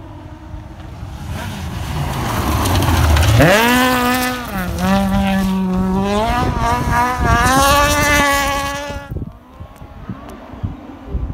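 Rally car approaching and passing at speed on a gravel stage: a rising rush of noise, then the engine revving high, its pitch climbing and dropping back at each gear change, until the sound cuts off suddenly near the end.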